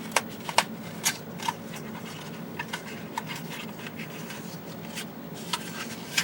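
6BA6 vacuum tubes and their small boxes being rummaged through and handled: a scatter of light clicks and rustles over a steady low hum.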